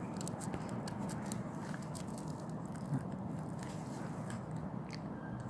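A dog gnawing and chewing on a pine cone, its teeth cracking the woody scales in irregular small crunching clicks.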